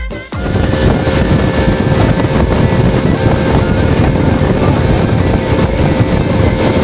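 The engine of a small motorboat running steadily as the boat moves along, with wind and water rushing past. It starts loud just after music cuts off at the very start.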